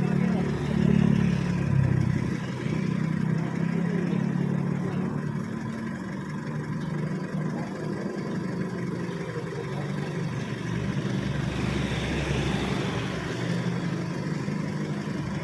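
A motor vehicle's engine running steadily, swelling briefly twice in the first couple of seconds.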